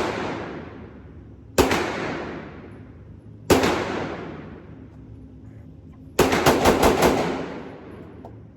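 Glock 26 9mm pistol firing: two single shots about two seconds apart, then a rapid string of about six shots in roughly a second, each shot followed by a long echoing tail.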